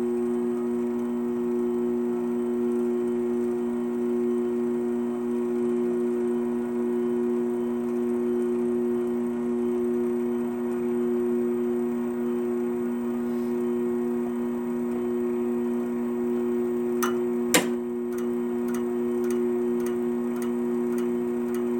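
Wire-spooling machine running with a steady motor hum while winding .035" welding wire onto a spool. About 17 seconds in there is a sharp click, typical of the traverse reaching the spool flange and switching direction. Then comes a regular ticking, about three a second: the clicky noise that the operator takes as a sign the wire is winding tightly against itself.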